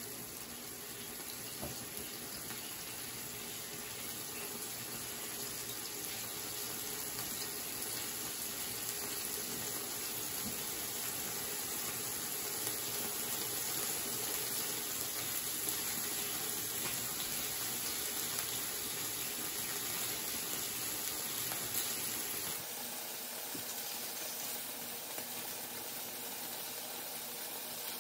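Sliced meat sizzling on a round electric tabletop grill plate, a steady hiss.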